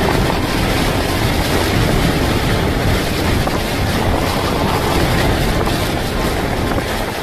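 Hurricane wind blowing hard across the microphone: a loud, unbroken rush of wind buffeting, heaviest in the low end.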